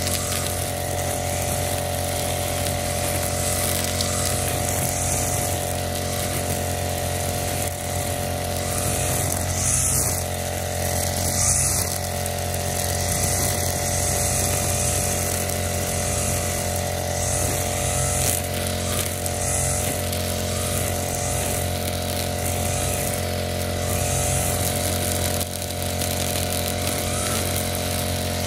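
Backpack brush cutter engine running steadily at a constant speed while its cutting head swings through tall grass, with a few brief hissy swishes as it bites into the growth.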